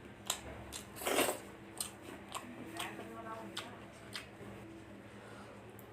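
Close-up mouth sounds of someone eating chicken fried rice: chewing, with scattered wet clicks and smacks, and one louder, longer noisy sound about a second in. A faint steady hum runs underneath.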